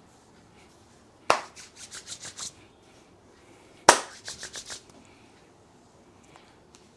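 Sharp cracks and claps from a barber's head-and-neck massage: two bursts about two and a half seconds apart, each a loud crack followed by about five quick, lighter clicks.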